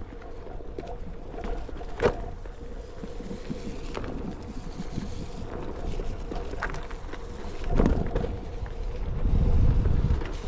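Onewheel electric board's hub motor humming steadily as it rolls over a dirt trail, with a sharp knock about two seconds in and another near eight seconds. Wind buffets the microphone heavily near the end.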